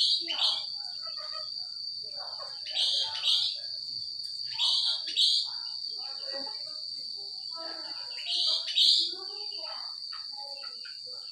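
A pet sooty-headed bulbul (kutilang) calling in loud whistled phrases: about four pairs of quick notes, each falling in pitch, a couple of seconds apart. A steady high-pitched tone runs beneath.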